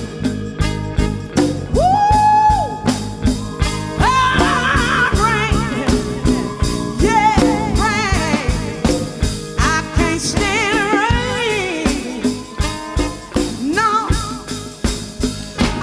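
Live soul band playing over a steady drum beat, with a singer holding long, wavering notes.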